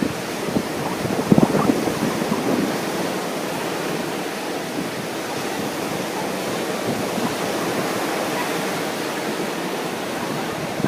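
Ocean surf washing in steadily under a strong wind, with gusts buffeting the microphone in the first couple of seconds.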